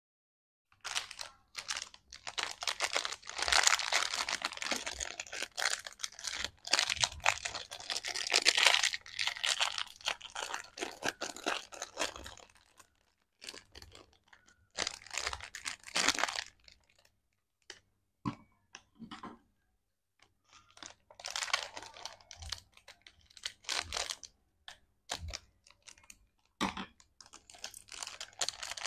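Plastic lollipop wrappers crinkling and crackling as they are handled and twisted open by hand, in long stretches of dense crackle broken by short quiet pauses.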